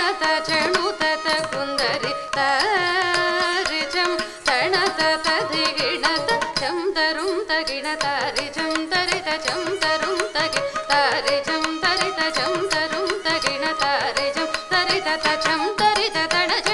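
Recorded Carnatic music played over a loudspeaker: a voice singing over a steady drone, with percussion strokes.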